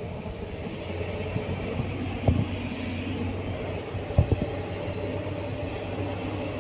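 Kobelco SK200 excavator's diesel engine running steadily, with a few sharp knocks about two seconds in and twice about four seconds in.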